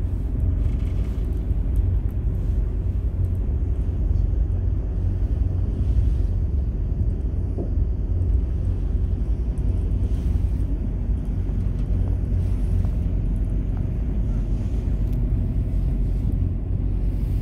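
Passenger ferry under way, its engine giving a steady low rumble along with the rush of the boat through the water.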